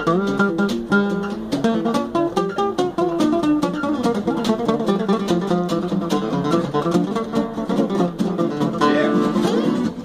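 Fretless acoustic guitar playing a fast gypsy jazz tune: quick runs of plucked notes over steady chord strums, with a sliding glide in pitch about nine seconds in.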